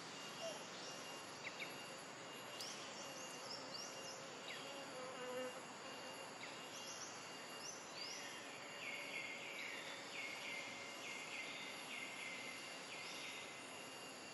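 Forest insects calling: a steady high whine, joined in the second half by a run of short, rhythmic high chirps, about two a second.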